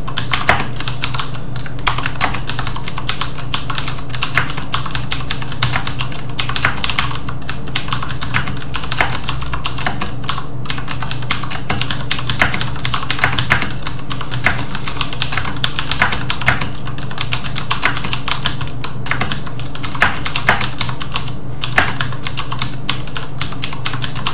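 Fast, continuous typing on an Ozone Strike Pro mechanical keyboard with Cherry MX Blue switches: a dense, irregular stream of clicky keystrokes. Picked up by a high-gain webcam microphone, with a steady low hum underneath.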